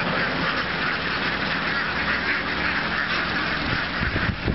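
A large flock of domestic ducks quacking all at once, a dense, continuous chatter of overlapping calls. A few low thumps come in near the end.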